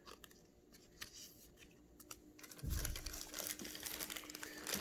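Thin plastic card sleeve crinkling and rustling as a baseball card is handled and slid into it. It starts quiet, then comes a soft bump about two and a half seconds in, followed by steady crinkling with small clicks.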